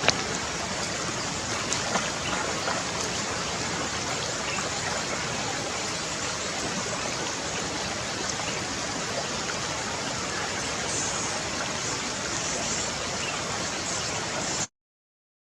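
Steady rushing noise, like running water, at an even level, with a few faint ticks; it cuts off suddenly near the end.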